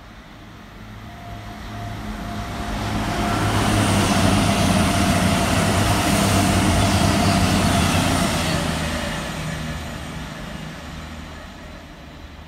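Two coupled Class 221 Super Voyager diesel-electric units passing through the station at speed, with underfloor diesel engine drone and wheel-on-rail noise. The sound builds to a peak about four to eight seconds in and then fades as the train goes away, with a steady low engine hum and a higher tone that drops a little in pitch as it passes.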